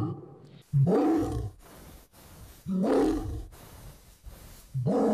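AI-generated lion roars, made by Adobe Firefly from a recording of a cat's meows, playing back. Three short roars about two seconds apart, each rising and then falling in pitch over a deep rumble.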